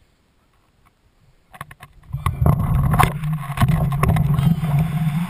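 Wind buffeting the microphone of a camera riding on a rising weather-balloon payload, with knocks and rattles from the swinging rig. It starts suddenly about two seconds in, after near quiet, and stays loud and rough.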